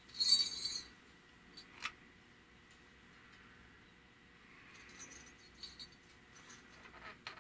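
A brief metallic jingle in the first second, then a few light clicks and faint rattles as the two puppet figures are handled and shifted about.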